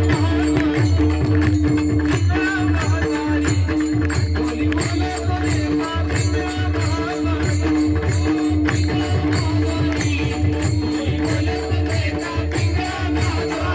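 Instrumental Indian folk music with a steady held drone and fast, rhythmic hand percussion with a rattling quality.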